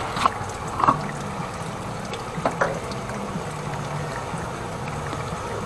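High-pressure drain jetter's pump running with a steady low hum and rushing water, with a few short clicks and knocks in the first half as its control panel is worked.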